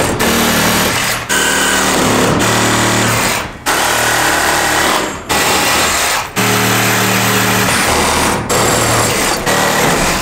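Cordless impact driver hammering in bursts of about a second, broken by brief pauses, as it works screws in the floorboards at the base of the radiator pipes.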